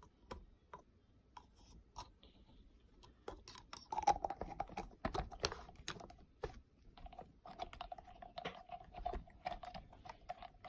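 Homemade slime being mixed and squished by hand: a stream of small irregular sticky clicks and crackles, busier from about four seconds in, with a faint steady tone in the background.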